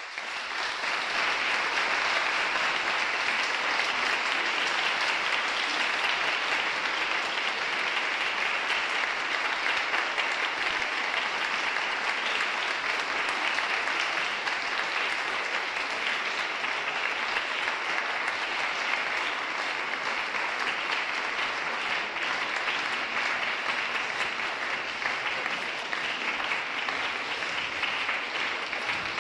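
Concert audience applauding steadily at the close of a song recital.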